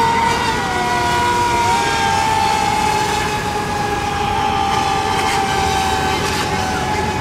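High-pitched whine of several racing RC boats running flat out across the water, their motors holding overlapping steady notes; one note dips in pitch about half a second in and climbs back a second later.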